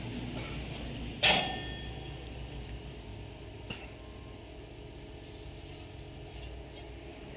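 A single sharp metallic clang with brief ringing, followed about two and a half seconds later by a lighter tap, over a low steady workshop background.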